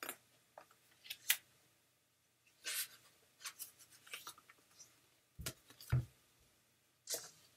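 Cardboard flashcards being handled and sorted by hand: scattered light clicks and short rustles of card against card, with two soft thumps about two-thirds of the way in as cards are set down and picked up.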